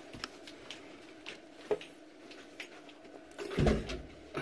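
Handling noise from plastic refrigerator shelf parts being moved about: scattered light clicks and taps, then a heavier bump and rustle about three and a half seconds in.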